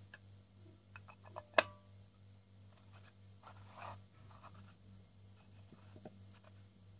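Acrylic four-piece herb grinder being handled: a few light plastic clicks, then one sharp click about a second and a half in, and a brief scraping of plastic on plastic about four seconds in, as its sections are fitted and turned.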